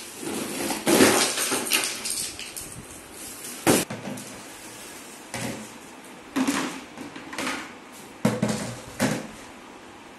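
Hollow plastic knocks and clatters from the large moulded plastic panels of a toddler's slide being lifted, shifted and set down on a marble floor, about eight separate knocks with the sharpest a little before the four-second mark.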